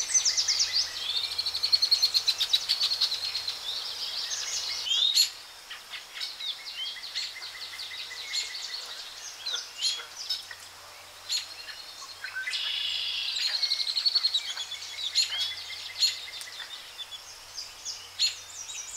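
Several birds singing and calling: a fast trill through the first few seconds and again about two-thirds of the way through, with scattered short chirps and quick rising and falling whistles between.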